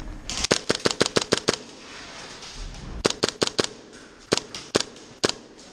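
Airsoft gun firing in quick sharp cracks: a rapid string of about nine shots, a shorter burst of four or five about three seconds in, then a few single shots.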